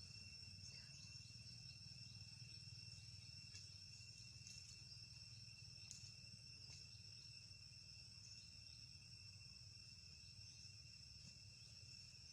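Faint, steady high-pitched insect chorus, with a low hum beneath it and a few faint ticks.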